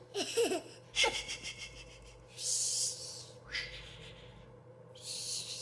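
Breathy gasps and wheezing breaths: short voiced gasps at the start, then two hissing breaths about two and a half and five seconds in.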